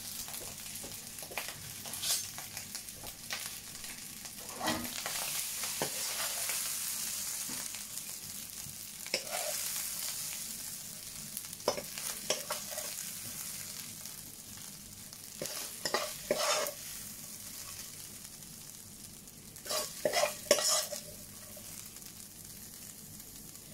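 Prawn fried rice sizzling in a hot pan with a steady hiss, while a spoon scrapes and knocks as rice is scooped out onto a plate; the scraping comes in scattered strokes, bunched together near the end.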